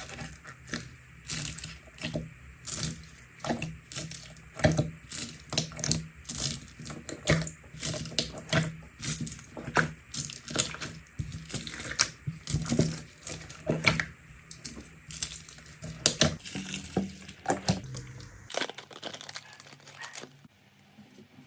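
Slime being squished and stretched, giving a rapid, uneven run of wet, sticky pops and crackles that thin out near the end.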